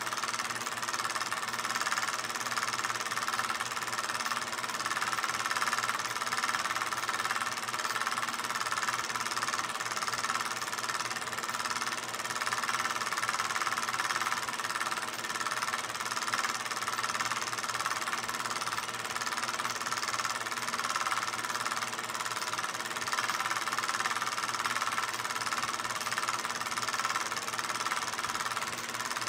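16mm film projector running: a steady mechanical whir and rattle.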